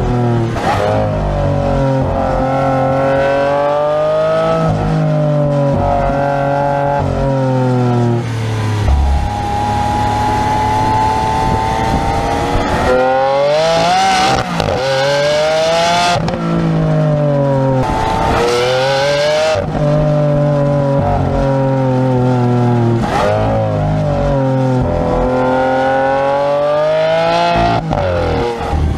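Lamborghini Aventador V12 engine pulling hard through the gears, its pitch climbing and dropping back again and again with each shift and change of throttle along the road.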